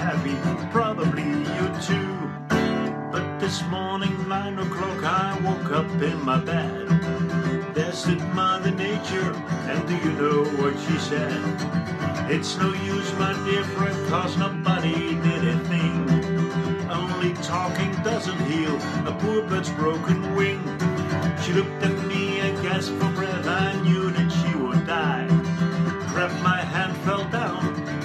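A man singing a country-style song to his own acoustic guitar.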